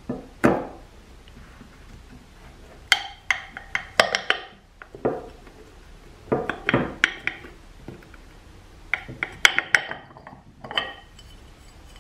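Irregular clinks and clacks of metal parts as the direct clutch apply piston of a 47RE automatic transmission is worked loose and pulled out of its steel drum, in several short clusters.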